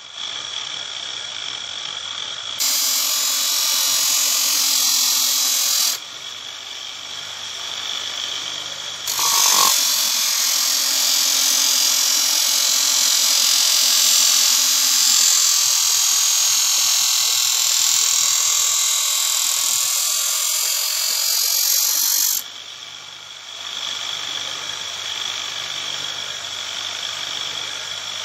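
Small electric sharpening machine running, its motor humming steadily while a knife blade grinds against the abrasive with a loud, hissing scrape. The sound changes level abruptly a few times, loudest for a long stretch in the middle.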